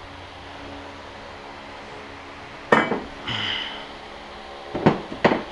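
Tools and metal parts clattering on a workbench: a sharp ringing metal clank about two and a half seconds in, a brief ringing after it, then two sharp knocks near the end.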